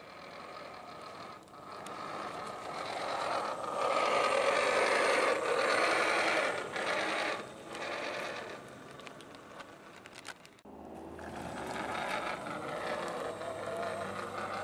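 Home-built RC car's electric motor and plywood gear train whirring with a rattly, ratcheting edge as the car drives by, growing loudest about four to seven seconds in and fading. It breaks off sharply about ten seconds in, then swells again as the car passes once more.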